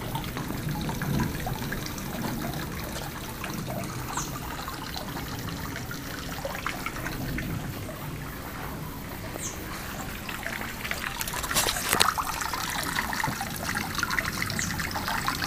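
Steady trickle of filtered water from the pond's small pump falling back into the garden pond, with a few faint high bird chirps from thrushes. About two-thirds of the way in comes a short burst of clicks.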